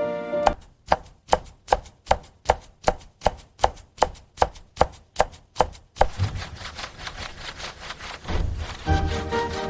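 A knife chopping vegetables on a cutting board, about three even strokes a second for some five seconds. The chopping gives way to a steady crackling hiss, and music comes back in near the end.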